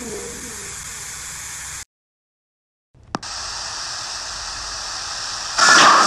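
Static-like hiss from a distorted audio-game clip played pitch-shifted up, breaking off into about a second of silence and a brief click, then resuming pitch-shifted down. Near the end it turns louder, with warbling tones in the noise.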